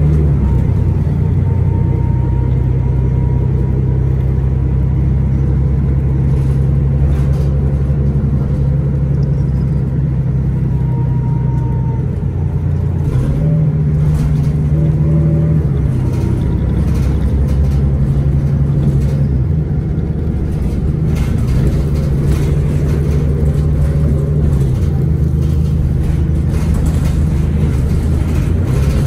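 2011 Orion VII 3G transit bus's Cummins ISL9 diesel engine running under way, a steady low drone whose pitch rises and falls a few times as the bus drives.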